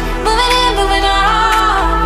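Pop music: a melody line held and sliding between notes over a beat.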